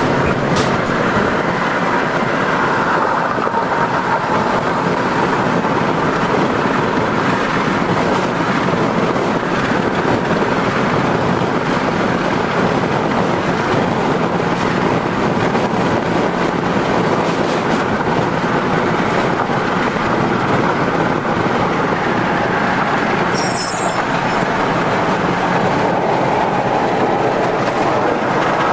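Steady road and wind noise of a moving car, heard from inside the car.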